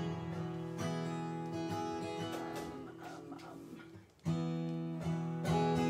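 Recorded acoustic guitar strumming the intro of a song, with a short gap about four seconds in before the chords start again.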